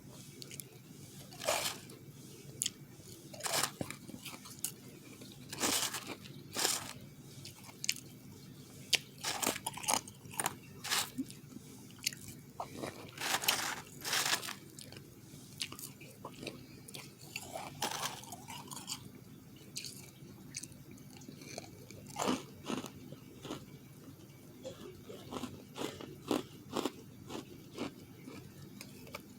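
Close-miked biting and chewing of refrozen powdery ice: sharp, irregular crunches, often about one a second and sometimes in quick clusters, with softer chewing between them.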